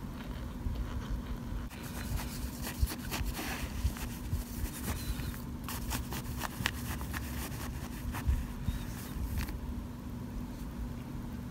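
A spoon scooping and crushing baked cornstarch chunks in a pan, making a run of crackly crunches and scrapes. It starts about two seconds in and stops a couple of seconds before the end.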